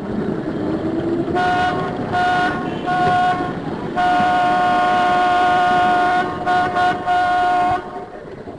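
A horn sounds three short toots and then one long blast that stutters briefly near its end, over steady background noise.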